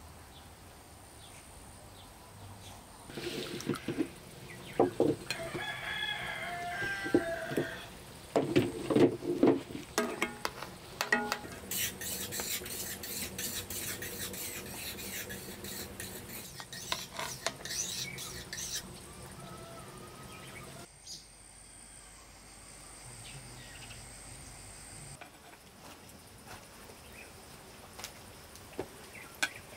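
A rooster crowing a few seconds in, followed by a metal spoon clinking and scraping against a pan and plate as stuffed aubergines and peppers are served.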